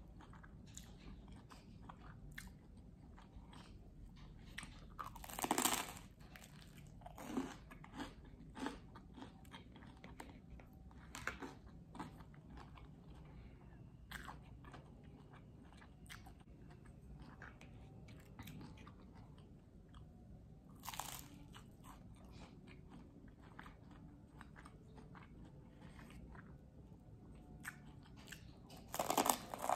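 A person biting into and chewing crunchy food, many small crackly crunches with a few louder bites about five seconds in, around twenty-one seconds and near the end.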